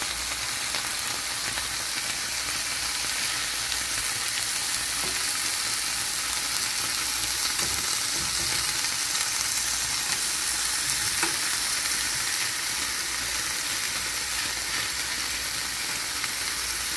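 Paneer cubes sizzling steadily as they fry in a pan, with a few light clicks of a fork turning the pieces.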